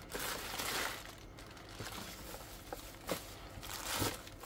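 Crumpled plastic packing bags rustling and crinkling as they are handled and lifted out of a cardboard box, loudest in the first second, with a couple of light knocks later on.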